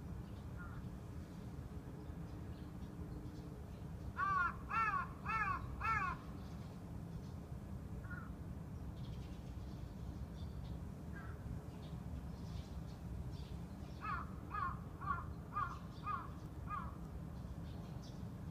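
Crow cawing: a run of four caws about four seconds in, then a quicker run of six shorter caws about fourteen seconds in.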